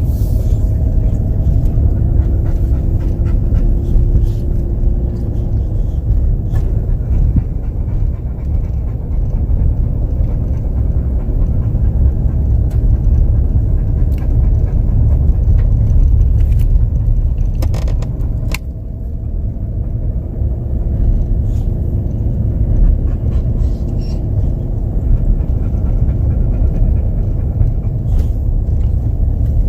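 A car driving slowly, with a steady low rumble of engine and road noise and a faint engine note that drifts up and down in pitch.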